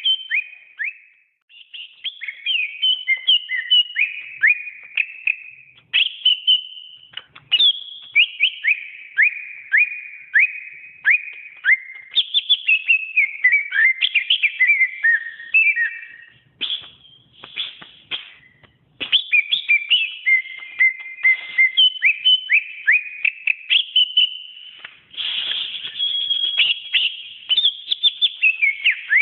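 Cucak ijo (green leafbird) singing: long runs of quick whistled notes, many sliding down in pitch, broken by a few short pauses.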